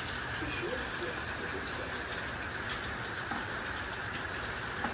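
Steady rain falling, an even rushing hiss with no let-up.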